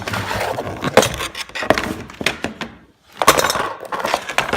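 The dishwasher's bottom access panel being taken off and handled, clinking and rattling over and over, with a short lull about three seconds in.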